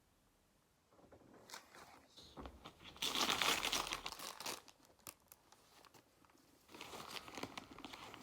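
Gift wrapping being torn and crumpled as a heavy present is unwrapped: quiet at first, then bursts of crinkling and tearing from about a second in, loudest around the middle and starting again near the end.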